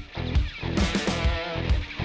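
Music with guitar over a steady beat.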